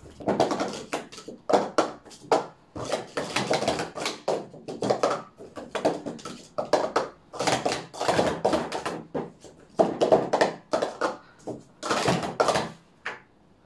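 Sport stacking cups clattering as they are rapidly stacked up and down through a cycle: a dense run of quick, light plastic clacks and taps on the stacking mat, stopping near the end.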